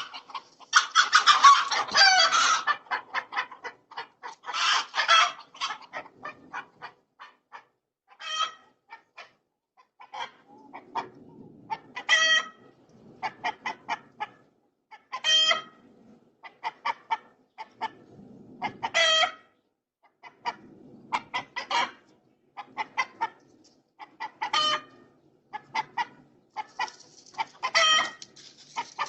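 Chickens clucking and squawking. A loud flurry of squawks comes in the first couple of seconds, then steady short clucks with a louder call every few seconds.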